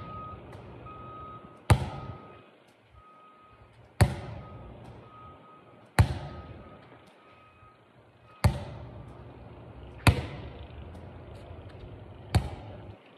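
A volleyball smacking against the concrete court six times, roughly every two seconds, as it is thrown back and forth and bounced. Each hit rings on briefly under the shelter's metal roof.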